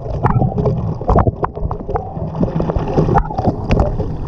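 Water rushing and splashing around a swimmer at the foot of a small waterfall. Many sharp splashes and drops hit close to the microphone over a steady low rush.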